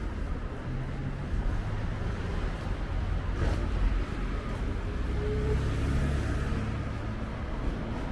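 Street traffic: cars passing with a low engine hum that swells and fades twice.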